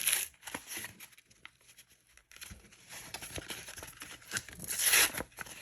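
Foil booster-pack wrapper crinkling and trading cards rustling as they are handled, with a burst of rustling at the start and again about five seconds in and small clicks between.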